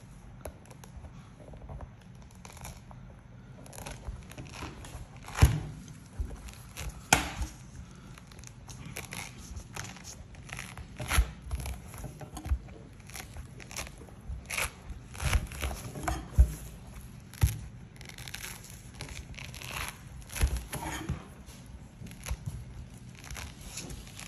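Thick pomelo rind and pith being torn off the fruit by hand: irregular ripping and crackling, with a few louder thumps.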